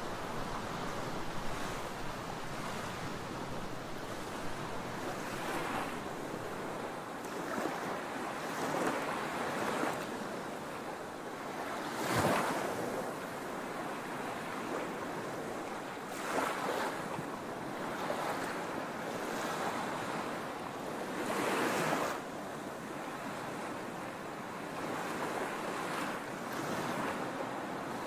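Small ocean waves washing up on a sandy beach: a steady surf hiss that swells every few seconds as each wave breaks, the biggest about twelve seconds in.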